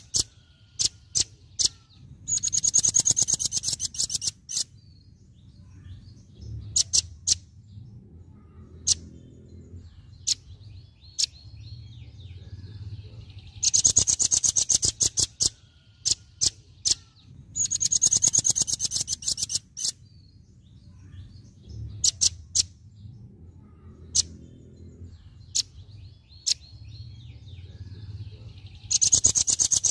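Velvet-fronted nuthatch singing its rapid-fire 'tembakan' bursts: four fast, high, chattering trills of about two seconds each, with single sharp high notes between them.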